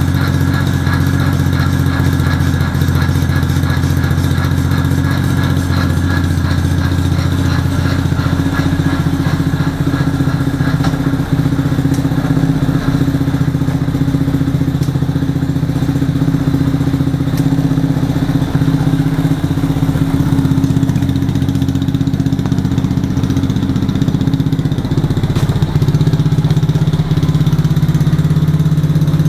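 Small 110 cc single-cylinder ATV engine running steadily in gear, driving the raised rear axle through the chain with the wheels spinning freely. The chain is running in a new chain slider and rubs against it because of runout at the sprocket nut.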